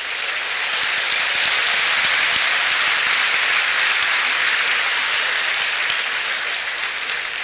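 A large crowd applauding: a dense, even clatter of clapping that builds over the first second and eases off a little near the end.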